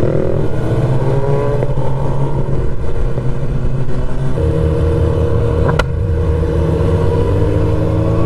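Motorcycle engine running under way, its note sinking slowly twice as it slows. There is one sharp click about six seconds in.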